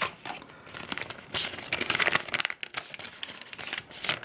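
Bubble wrap being handled and unwrapped by hand, crinkling and rustling in irregular crackles.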